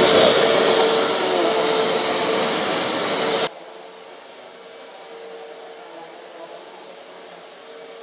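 Upright vacuum cleaner running on carpet: a steady whine over the rush of air, cutting off suddenly about three and a half seconds in. Only a quiet, steady background hum follows.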